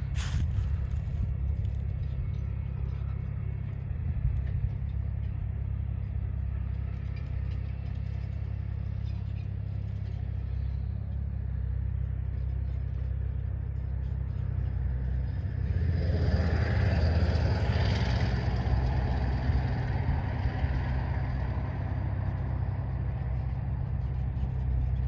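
Steady low outdoor rumble, with a louder rushing sound that swells about sixteen seconds in and dies down over about five seconds.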